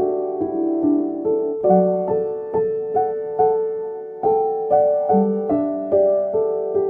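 Background piano music: a gentle melody of struck notes and chords at a steady pace.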